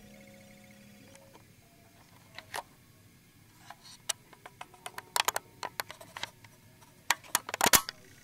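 The last held notes of a piece of music die away within the first second, followed by scattered, irregular sharp clicks and taps that come thicker and louder towards the end.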